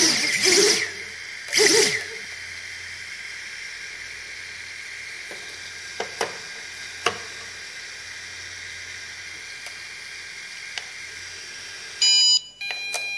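The small brushless motors of an Eachine EX2 mini quadcopter, on a replacement JHEMCU 4-in-1 ESC, rev in short bursts that rise and fall in pitch. They then settle into a steady high whine with hiss, with a few light clicks. Near the end comes a quick run of electronic beeps at stepping pitches.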